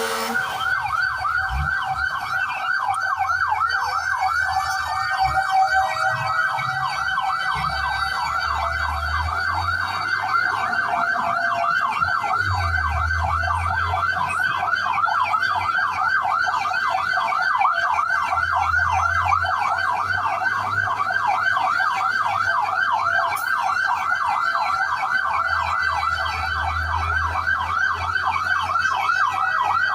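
Fire truck electronic siren sounding continuously in a fast yelp, sweeping rapidly up and down in pitch. A slower wailing siren tone glides up over the first few seconds, and a low rumble comes and goes underneath.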